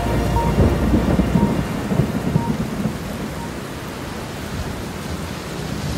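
Thunderstorm: steady heavy rain hiss under rolling thunder. The rumble is strongest in the first couple of seconds and eases off, leaving mostly rain.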